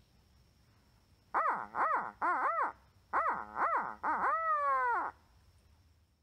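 Mouth-blown barred owl hooter, a wooden tube locator call, giving a series of hoots in the 'who cooks for you, who cooks for you-all' rhythm: four quick hoots, a pause, two more, and a last long hoot that falls away. It is an owl locator call meant to make a turkey gobble back.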